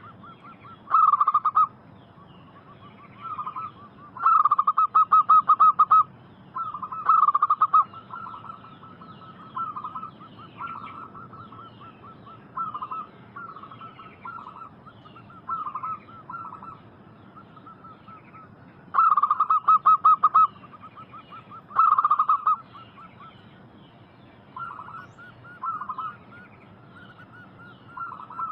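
Zebra dove (perkutut) cooing: phrases of rapid, pulsing coo notes, repeated every second or two, some loud and some softer, with a short pause about two-thirds of the way through.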